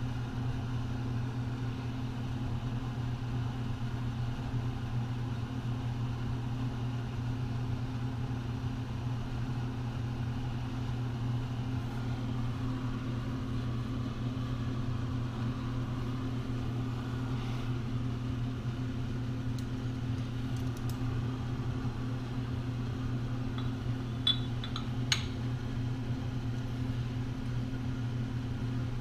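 Steady low electrical or motor hum of the machine shop, with a few short, sharp metallic clicks near the end.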